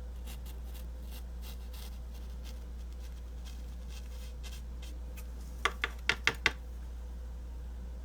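Light rubbing strokes on a cardstock tag as stray embossing powder is cleared off it. A little past the middle comes a quick run of five sharp taps.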